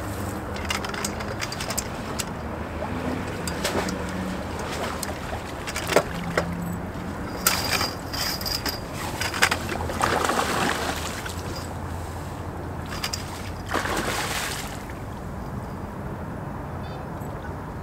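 Knocks and scrapes of a long-handled fishing landing net and gear against a concrete river wall, with a couple of longer rushes of water sloshing, over a low steady hum.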